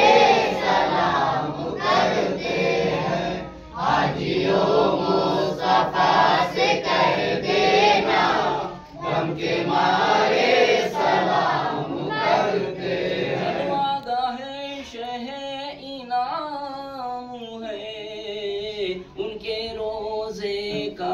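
Group of men singing a devotional salaam together. About 14 seconds in the group drops away and a single man's voice carries on alone in long, drawn-out melodic lines.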